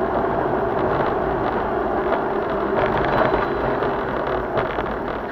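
Steady road and engine noise inside a moving car, picked up by a dashcam's microphone, with a few light knocks.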